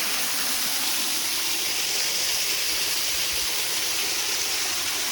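Waterfall rushing close by: a steady, unbroken hiss of falling water.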